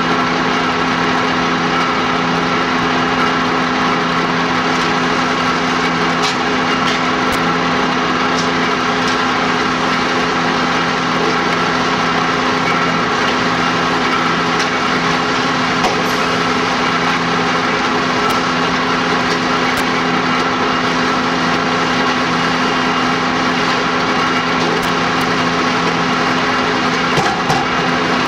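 Fire engine's motor running at steady revs beside the hose lines, driving its pump to supply the hoses.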